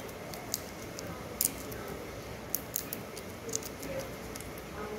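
Scattered small clicks and crackles of dry, papery jackfruit seed husks being cracked and peeled off by hand, and the seeds scraped, with a few sharper snaps along the way.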